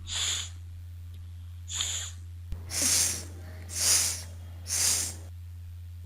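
A teacher's voice sounding the letter S as a drawn-out hissing "sss", five times about a second apart: the phonics sound of the letter S.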